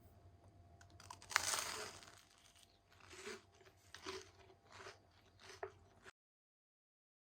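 A crisp bite into flaky puff pastry, then chewing crunches about once a second. The sound cuts off abruptly about six seconds in.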